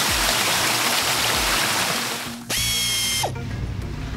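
Cartoon sound effect of water jets spraying, a steady hiss that fades out about two seconds in. A short, bright high tone follows for under a second, over background music.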